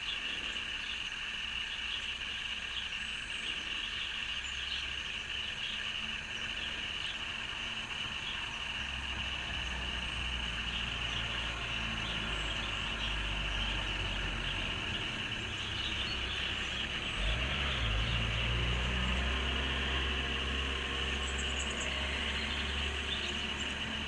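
Outdoor background noise: a steady high-pitched hiss with faint flickering chirps, and a low rumble that builds from about a third of the way in and is loudest a little past the middle.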